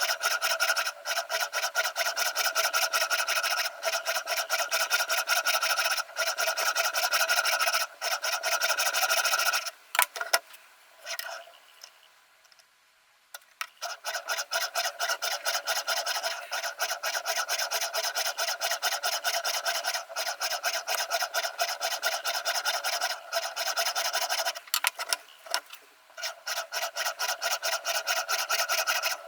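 Sharpening stone of a Ruixin Pro RX-008 guided sharpener scraping rapidly back and forth along the edge of a VG10 Damascus chef knife, a steady run of quick gritty strokes. About ten seconds in the strokes stop for a few seconds, with a couple of clicks, then resume.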